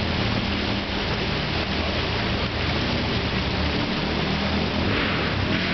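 Jeep Wrangler engine running at low revs as it crawls over a rock ledge, under a steady rushing hiss.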